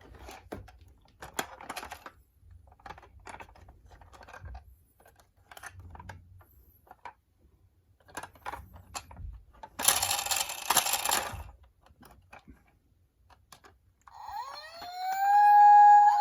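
Toy mini cars clicking and rattling as they are handled and rolled, with a louder rattle about ten seconds in. Near the end a toy's electronic siren starts, gliding up in pitch and then holding one tone.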